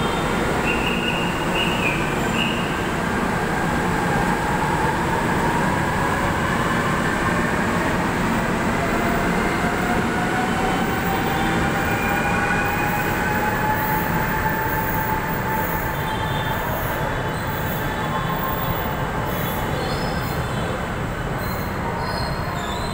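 MRT-3 train running through the station, a steady loud rumble with long thin squeals that slide slowly up and down in pitch.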